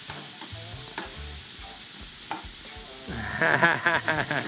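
Thin slices of beef loin sizzling in oil on a hot griddle pan, turned with metal tongs that click against the pan a few times. From about three seconds in, a louder sound with a wavering pitch rises over the sizzle.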